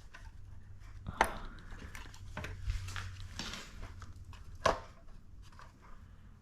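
Hand work on motorcycle parts: scattered light clicks and rattles of parts and tools being handled, with two sharp knocks, one about a second in and another near five seconds in.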